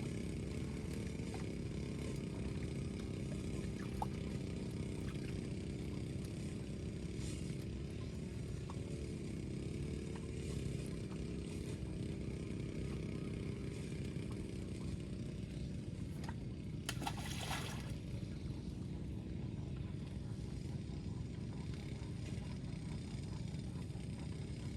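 A small boat's engine running steadily, with a brief hiss about seventeen seconds in.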